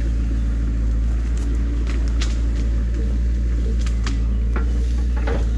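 Excavator's diesel engine running steadily as the machine drives in on its tracks, with scattered sharp clicks and knocks over the engine hum.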